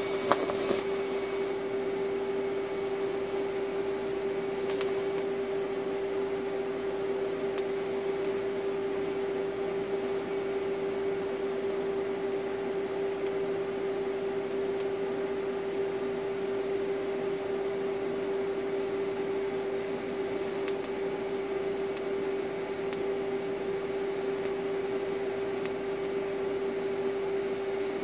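TIG welding arc from an AHP Alpha-TIG 200x burning steadily as filler rod is fed to fill a hole in steel tubing: a constant buzzing hum with a steady pitched tone. There is a brief click about half a second in.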